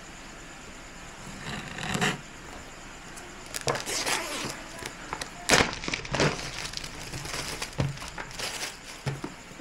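Clear plastic shrink-wrap being cut and pulled off a cardboard product box, crinkling and crackling in irregular bursts, loudest about halfway through.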